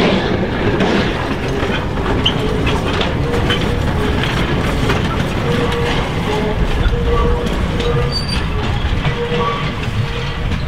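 Hunslet tank locomotive Y542 and its passenger cars running along the track, wheels clicking over rail joints under a steady rumble, with short squeals coming and going.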